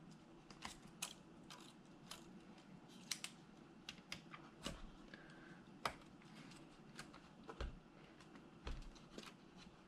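Faint, irregular clicks and taps of a laptop keyboard and its plastic parts being handled and fitted into place, with two soft thumps near the end.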